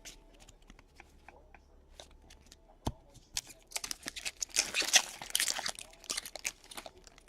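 Light clicks of trading cards being handled, then a trading card pack wrapper crinkling and tearing as a pack is opened, loudest about five seconds in.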